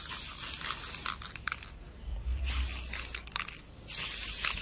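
Aerosol spray-paint can spraying in hissing bursts, broken by two short pauses just under two seconds in and around three and a half seconds in.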